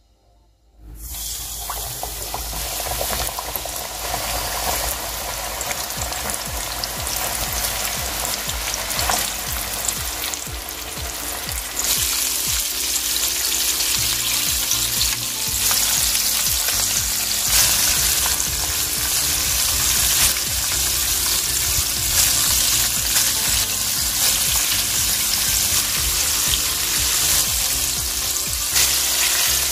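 Flour-coated chicken drumsticks deep-frying in oil at about 170 °C on their first fry: a sizzle that starts suddenly about a second in as they go into the oil, then a dense, steady bubbling hiss that grows louder about twelve seconds in.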